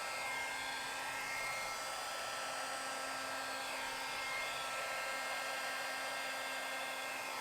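Hair dryer running steadily on its low setting, a whooshing hiss with a constant high whine, blowing wet acrylic paint outward in a bloom blowout.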